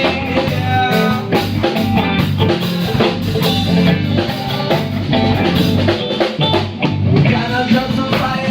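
Live band playing an instrumental jam: drum kit keeping a steady beat with guitar and bass, no vocals.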